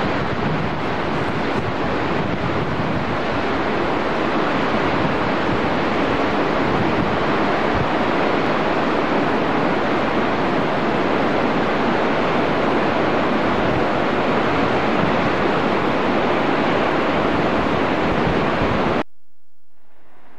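A steady, loud rushing noise with no distinct events, which cuts off abruptly about a second before the end.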